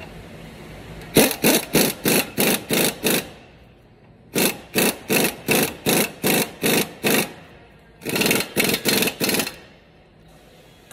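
Impact wrench on a long extension hammering at a ball joint stud nut, the trigger pulsed in short bursts, about four a second, in three runs.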